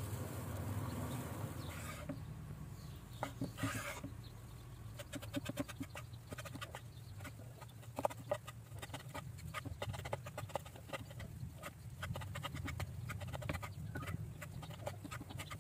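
A large kitchen knife chopping boiled beef on a wooden cutting board: a long run of quick, light taps, starting after a couple of seconds of steady hiss.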